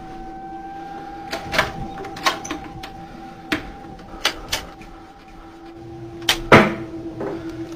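A door being opened and footsteps going up bare wooden stairs: a series of sharp, irregular knocks and clunks, the loudest pair about six and a half seconds in, over a steady low hum.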